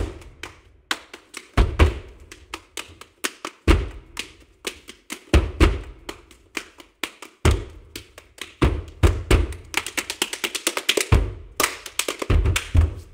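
Body percussion by two performers: rhythmic hand claps and slaps on the chest and body, punctuated by heavy barefoot stamps on a wooden stage floor. Around ten seconds in the strikes speed up into a rapid run before the stamps return.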